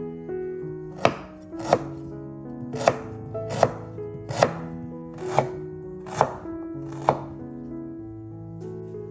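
Knife chopping food on a cutting board: eight sharp chops at an unhurried, slightly uneven pace, over soft piano music.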